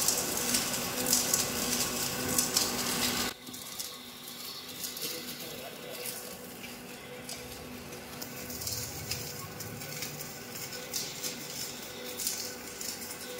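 Film slitting and rewinding machine running on clear polyester film: a steady motor hum under a dense crackle of plastic film winding through the rollers. About three seconds in, the sound drops sharply, leaving a fainter hum and scattered crackle.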